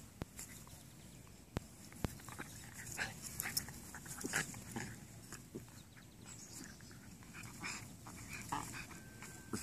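Two Cairn terriers play-fighting at close quarters: short, irregular dog sounds come and go, with a few sharp clicks in the first two seconds.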